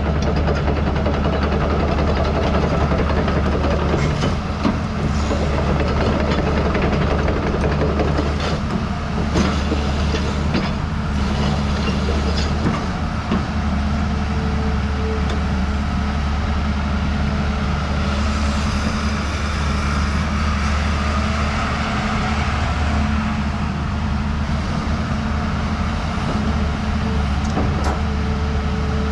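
Hyundai R210 crawler excavator running with a steady low diesel drone while the boom and arm are worked. There are scattered metallic clanks in the first half, and a steady whine comes in about halfway through.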